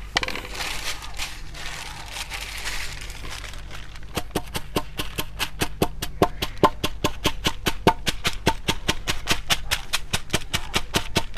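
Plastic packet of urea granules rustling as it is handled, then from about four seconds in a hammer tapping on the packet against a concrete slab at a steady rate of about four blows a second, crushing the granules to powder.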